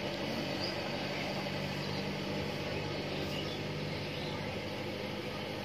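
Kubota tractor's diesel engine running steadily at an even speed.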